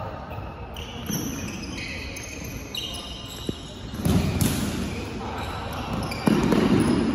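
Football match on the pitch: players shouting and calling to each other, with louder bursts of shouting about four and six seconds in, and the thud of the ball being kicked.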